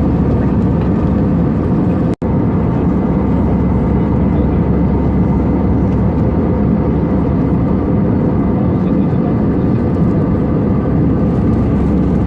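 Steady roar of an Airbus A320's jet engines and airflow heard inside the passenger cabin, with a faint steady hum over it. The sound cuts out for an instant about two seconds in.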